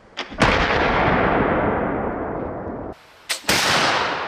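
Two shots from flintlock muzzleloading longrifles, one near the start and one about three seconds later. Each is a short sharp crack followed a split second later by the full report, which fades away slowly. The first shot's fading tail is cut off abruptly just before the second shot.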